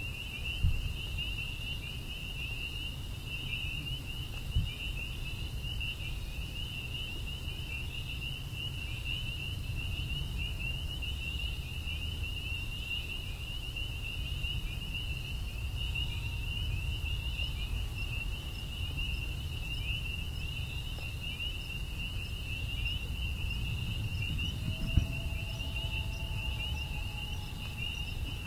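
Crickets chirping in a continuous chorus, a steady high trill, over the low rush of a brook. There are a few short knocks, and two faint held tones near the end.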